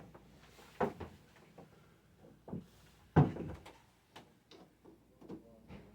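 Scattered clicks and clunks of channel-lock pliers and shower fittings being handled, about eight in all, the loudest about three seconds in.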